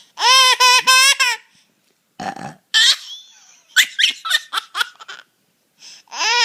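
A baby laughing in a run of high-pitched pulses, then a short, rough burp about two seconds in, followed by squeals and giggles and another burst of laughter near the end.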